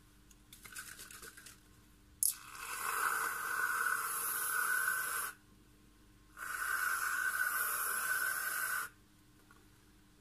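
Aerosol can of whipped cream spraying in two long hisses, the first about three seconds and the second about two and a half, with a short pause between.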